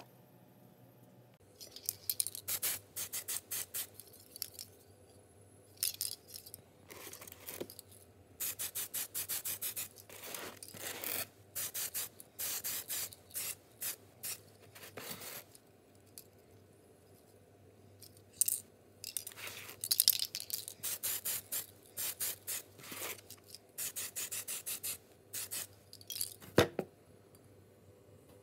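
Quick scratchy rubbing strokes, several a second, in bursts of one to three seconds with short pauses between: a small diecast car body being rubbed down by hand.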